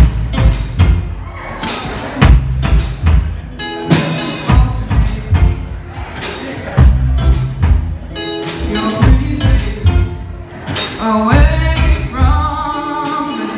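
Live rock band playing: drum kit beating a steady rhythm under electric guitars and electric bass, with a woman singing into a microphone; her held, wavering notes stand out near the end.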